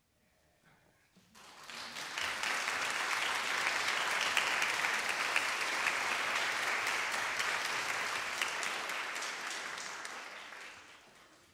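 Audience applauding, starting about a second in, swelling quickly and then slowly fading toward the end.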